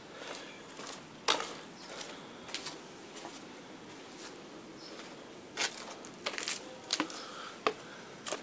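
Footsteps on a concrete walkway: short sharp scuffs and clicks at uneven intervals, the loudest about a second in and several more close together in the second half.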